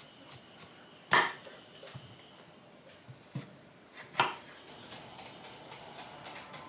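Cleaver chopping into a fresh bamboo shoot: two sharp chops about three seconds apart, with a few lighter knocks between them.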